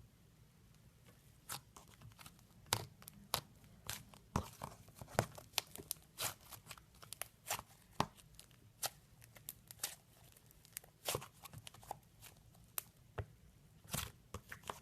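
Red-clay slime being worked by hand, giving irregular sharp crackling snaps and pops, roughly one or two a second, starting about a second and a half in.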